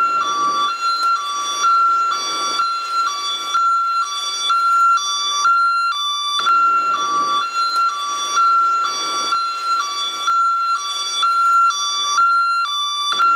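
American ambulance hi-lo siren, alternating steadily between a higher and a lower tone about once a second.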